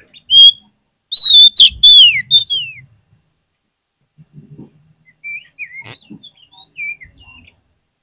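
Oriental magpie-robin singing: loud whistled notes that slur downward in the first three seconds, then after a pause a run of softer, short chirpy phrases. A single click sounds about six seconds in.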